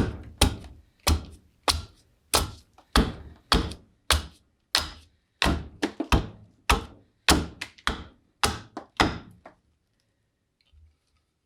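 A hand-held edged tool hewing green black walnut: a steady run of sharp chopping thunks, about two a second, which stops near the end.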